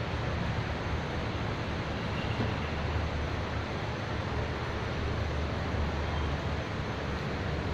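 Steady outdoor background noise: a continuous low rumble with hiss over it and no distinct event.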